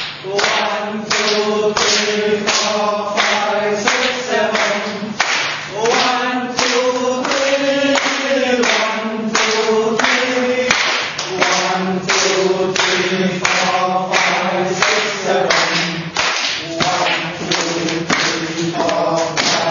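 A group of people clapping in a steady rhythm, about two to three claps a second, while their voices chant together in time with the claps.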